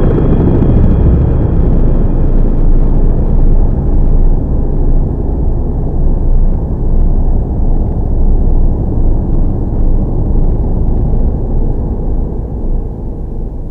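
Low, dense rumbling electronic noise from a synthesizer soundtrack piece. Faint held synth tones fade out a few seconds in, and the rumble starts to die away near the end.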